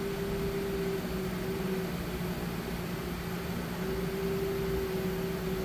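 Refinecolor RF-TS2 DTG printer pumping ink through its lines during an ink-load cycle: a steady mechanical hum whose tone dims and returns twice.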